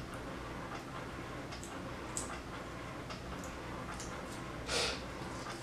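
Faint scattered ticks and light handling noise from fingers pressing and smoothing wig tape onto bare skin, with a short soft burst of noise near the end.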